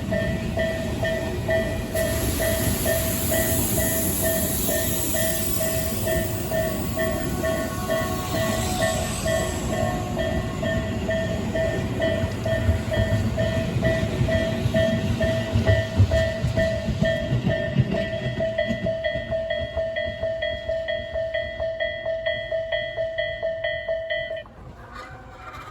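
Japanese level crossing warning bell ringing in a steady, rapidly repeating ding while a Tobu 8000 series electric train runs past with rumble and wheel clatter. The train noise fades away and the bell stops abruptly near the end.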